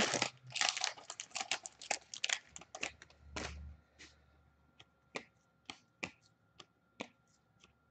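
A trading-card pack wrapper crinkles and rustles as it is opened. Then single hockey cards flick against one another as they are flipped through the stack, a sharp click about every half second.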